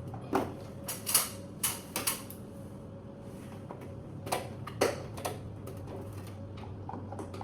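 Scattered sharp clicks and knocks of hard plastic and small parts being handled as the air conditioner's control panel is worked on and put back together, in two loose clusters over a steady low hum.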